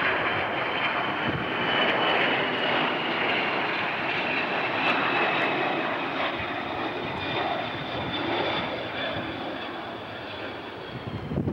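Jet airliner engines: a steady rush with a high, steady whine over it, easing off slightly in the last few seconds.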